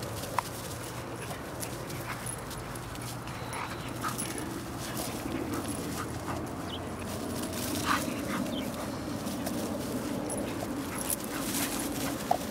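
Pit bulls giving short, excited whines and yips here and there while chasing a flirt-pole lure, over a steady rushing noise that grows louder about halfway through.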